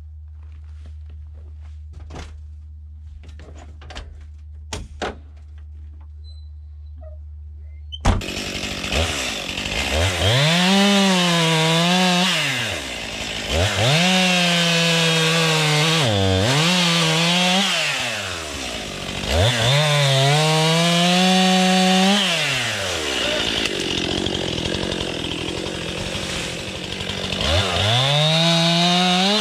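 A steady low hum with a few sharp knocks, then suddenly a loud two-stroke chainsaw revving repeatedly: the engine climbs to full throttle, holds while cutting, and drops back to idle about four times as it cuts into trees.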